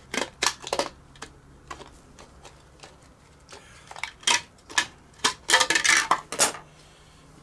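Large scissors cutting through a thin vacuum-formed plastic moulding sheet: a run of sharp snips and crackles, a few scattered ones, then a louder, denser cluster of cuts in the second half.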